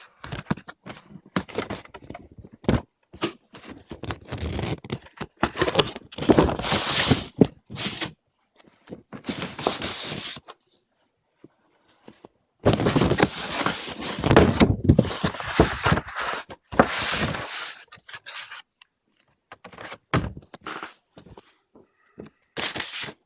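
A large paper envelope being handled and opened, its contents slid out: paper rustling and scraping in irregular bursts, with short knocks and thuds between pauses.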